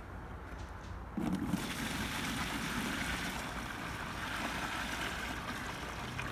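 Water running steadily into a tub, starting abruptly about a second in.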